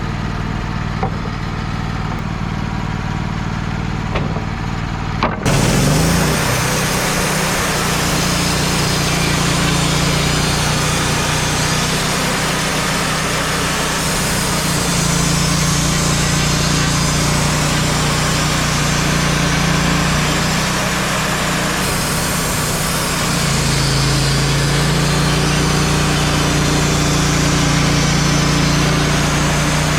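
Wood-Mizer LT35 portable band sawmill running steadily. About five seconds in, a much louder, hissing sawing noise starts over the engine as the band blade cuts through a black walnut log, and it continues.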